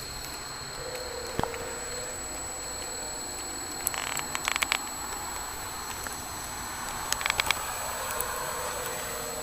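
Fat wood burning in a tin-can rocket stove: a steady hiss with two short bursts of crackling pops, about four seconds and seven seconds in.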